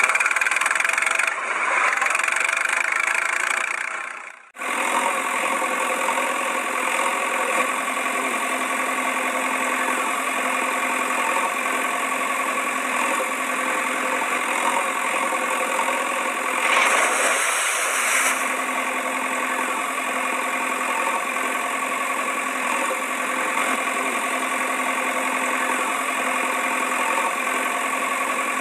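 Engine idling steadily, a vehicle engine sound for the toy tractor and backhoe loader. The sound breaks off and restarts with a different pitch pattern about four seconds in, and turns briefly rougher and hissier around seventeen seconds in.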